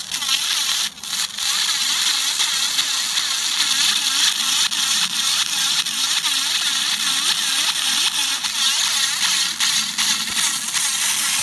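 Handheld laser cleaner ablating burnt-on carbon from the bottom of a pressure cooker: a loud, steady hiss, broken briefly about a second in.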